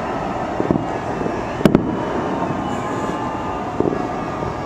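Fireworks display: a continuous rumble of far-off bursts with a few sharper bangs, the loudest about a second and a half in.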